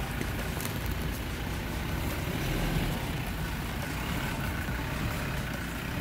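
Off-road SUV engine running steadily, a low rumble.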